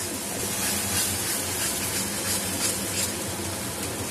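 Onion-and-tomato masala frying in a metal kadai, a steady sizzle with repeated light scrapes of a metal spatula stirring it.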